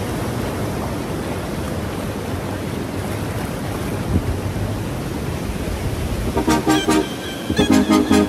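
Steady rushing noise of surf and wind, then from about six seconds in a horn sounds in two groups of short, rapid toots, louder than the surf.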